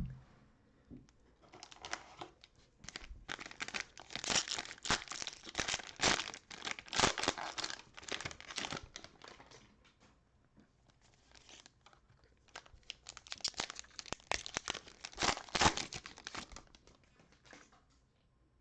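Cellophane wrappers of trading-card cello packs being torn open and crumpled, in two long spells of crinkling with a short pause between.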